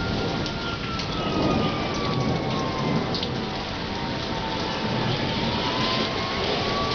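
Steady heavy rain during a thunderstorm, with a low rumble of thunder in the first half. A faint thin tone slowly falls and then rises again.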